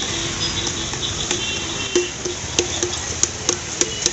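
Busy street noise of motor scooters and auto-rickshaws in a crowded market lane. Faint high thin tones sound in the first half, and a run of sharp clicks and clatter comes in the second half.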